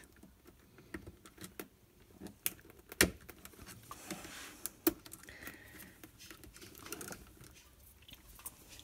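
Scattered light clicks and taps of a metal screwdriver and wire against the plastic Flow Hive Flow Frame as the wire is fought into place, with two sharper clicks about three and five seconds in.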